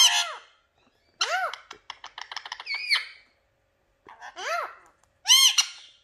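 Indian ringneck parakeets calling: short squawks that rise and fall in pitch, with a quick run of clicking chatter in between. The loudest squawk comes near the end.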